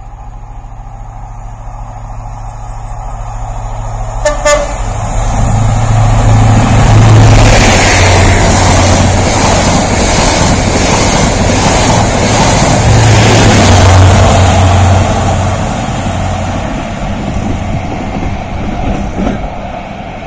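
A train passing close by, its low running hum and rail noise building to a peak and then fading away. There is a brief horn toot about four seconds in.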